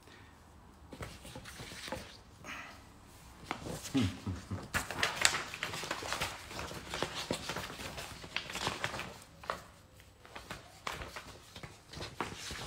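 Scattered clicks, taps and light rustles of smartphones and their boxes being handled, with a short low sound about four seconds in.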